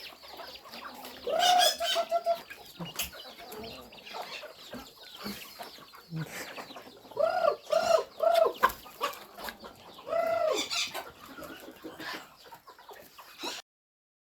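Chickens clucking and chirping as they feed, with a few louder arched clucks about a second and a half in, a quick run of three around the middle, and another near the end, before the sound cuts off suddenly.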